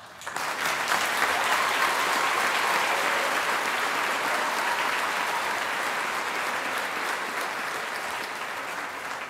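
Audience applauding. The clapping breaks out all at once and tapers off slowly toward the end.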